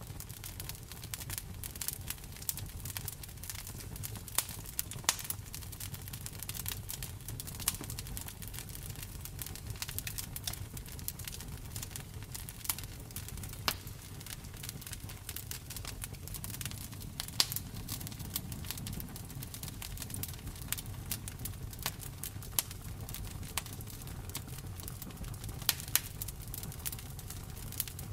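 Campfire burning: the wood crackles with frequent, irregular sharp pops over a steady low rumble.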